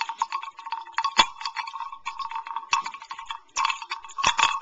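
Wooden basenji hunting bell from the Congo shaken by hand, its long clappers clacking rapidly and irregularly against the bell with a ringing tone underneath.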